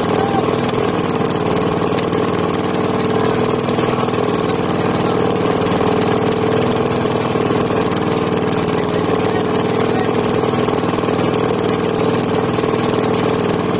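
Outrigger fishing boat's engine idling, a steady, unchanging hum.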